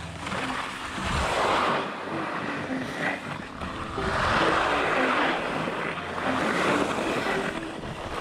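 Skis scraping and hissing over hard spring snow during downhill turns, the noise swelling and fading about three times as the edges bite into each turn.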